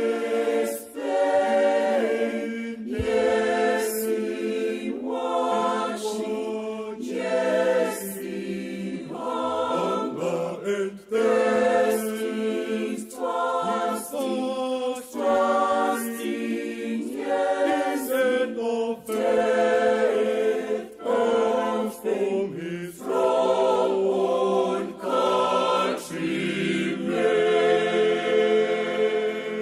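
Mixed choir of men's and women's voices singing a gospel song in English, in short phrases about a second apart, breaking off at the end.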